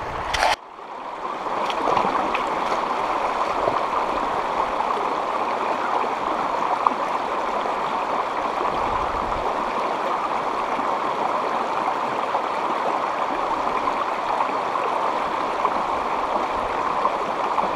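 Rushing water of a shallow, rocky river rapid, a steady rush of whitewater running over boulders.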